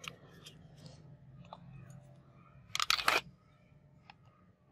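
Plastic and metal jigsaw housing parts handled and fitted together by hand, with scattered light clicks and a short burst of louder clicking and clattering about three seconds in.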